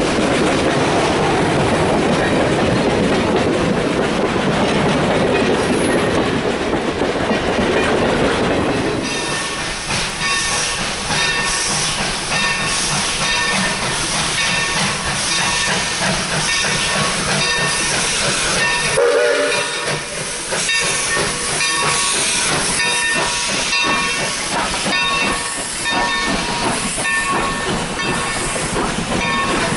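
Passenger coaches rolling past close by with a rumble and wheels clicking over rail joints. About nine seconds in, this gives way to a steam locomotive drifting past with steam hissing and a ringing tone that pulses about once a second.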